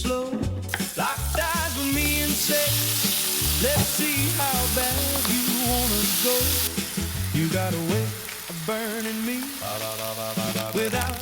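Rice frying in a hot pan, sizzling strongly for the first several seconds, then quieter after about two-thirds of the way through. Background music with a steady bass beat plays throughout.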